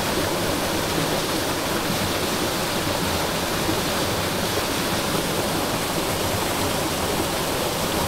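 Small waterfall pouring into a shallow rocky pool, with the stream running over stones: a steady, even rush of water.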